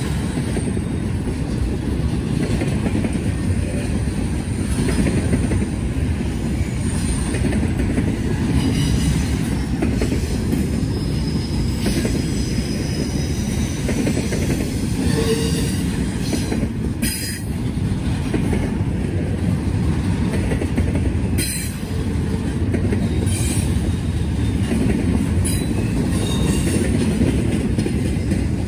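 Long intermodal freight train of double-stack well cars rolling past: a steady rumble of wheels on rail, with faint, brief squeals from the wheels now and then.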